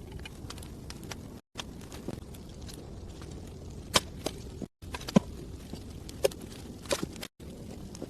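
Several sharp knocks and snaps, the loudest about four and five seconds in, over a steady low background noise. The sound drops out briefly three times.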